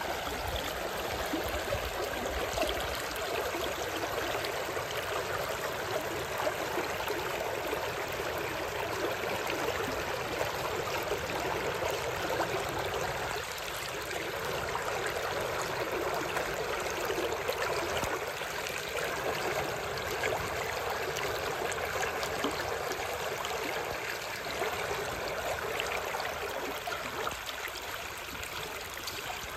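River water rushing steadily over a weir of stacked riverstones just below the surface, breaking white over the stones.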